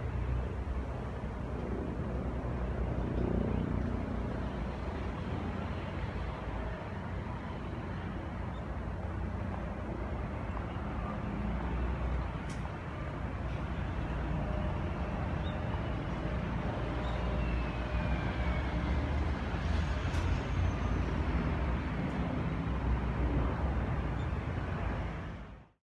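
Steady city street ambience: a continuous rumble of road traffic, with a few faint short high chirps over it; it fades out just before the end.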